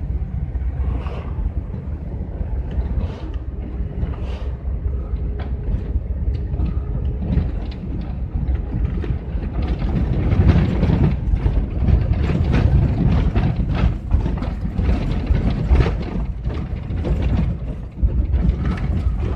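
GAZelle van driving over a broken, potholed road, heard from inside the cab: a steady low engine and tyre rumble with frequent knocks and rattles as it jolts over the bumps. The knocking gets louder and more frequent about ten seconds in.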